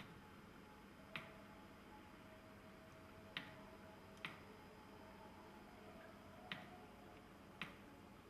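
Near silence: quiet room tone with a faint steady hum, broken by five sharp, irregularly spaced clicks.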